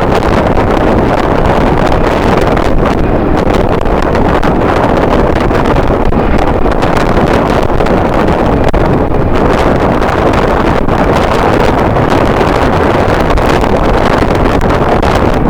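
Strong wind blowing across the microphone: a loud, steady rush of noise.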